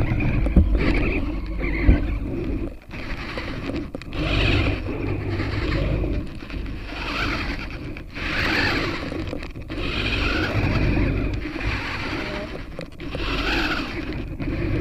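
Robot servos whirring in swells every couple of seconds, as a walking gait would drive them, over a steady low rumble of wind on the microphone.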